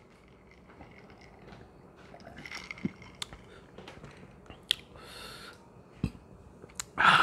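Drinking from a glass mug of iced drink: quiet sips and swallows with small clicks, a light knock as the glass is set down on the table, a breathy exhale about five seconds in, and a sudden loud breathy sound near the end.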